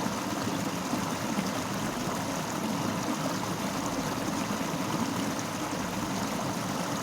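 Fast-flowing river: a steady rush of water over rocks.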